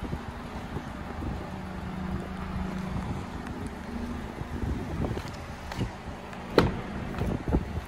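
Wind buffeting the microphone over a low steady hum. Near the end comes one sharp click, then a few softer knocks, as the driver's door handle of the Acura TSX SportWagon is pulled, the latch releases and the door is opened.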